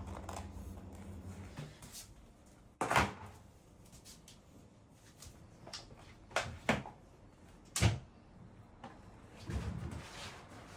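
Cupboard doors and drawers being opened and shut: a handful of separate knocks and clunks, the loudest about three seconds in and again near eight seconds.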